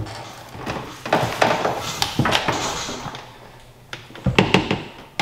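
Clunks, knocks and scraping as a rebuilt Sea-Doo 787 two-stroke engine is lowered by hand into the jet ski's hull, with a quick run of heavier knocks and low thuds near the end.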